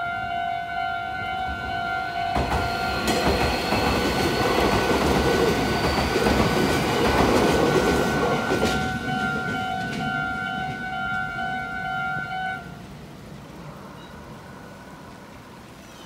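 Japanese level-crossing warning bell ringing steadily as a red Meitetsu Inuyama Line electric train passes over the crossing, its wheels and running gear making a loud rush for about six seconds. The bell stops about three-quarters of the way in, leaving only quieter street sound.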